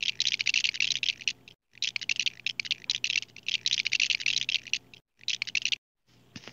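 Rapid, dense crackling and crunching, many small clicks a second, cut off abruptly by brief moments of total silence three times. A few separate clicks near the end.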